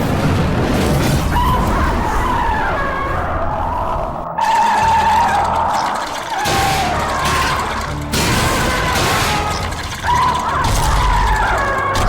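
Gamera's monster roar sound effect from Gamera: Rebirth: a run of about four long, screeching, wavering cries, one after another, each a few seconds long and falling in pitch at its end, over a heavy low rumble.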